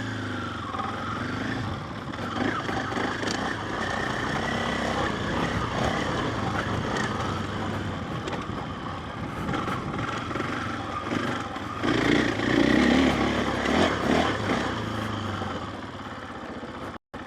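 KTM 500 EXC dirt bike's single-cylinder four-stroke engine running as the bike is ridden off-road, rising and falling with the throttle and loudest about twelve seconds in. The sound cuts off abruptly near the end.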